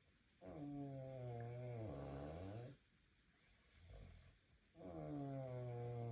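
A woman snoring: two long, droning snores about four seconds apart, each lasting over two seconds, with a faint breath between them.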